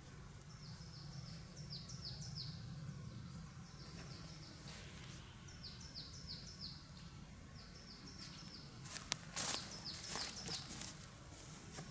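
A songbird singing repeated phrases of quick, high, descending notes, over a low steady outdoor hum. About nine seconds in, the tarp fabric rustles and swishes sharply as it is pulled and handled.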